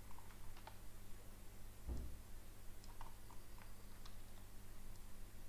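Faint, scattered computer mouse clicks over a low steady hum, with one dull thump about two seconds in.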